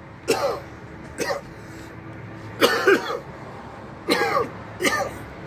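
A man coughing into his fist in a fit of about six coughs, two of them back to back in the middle. The cough comes from the chilli heat of Takis Nacho Explosion rolled tortilla chips burning his throat.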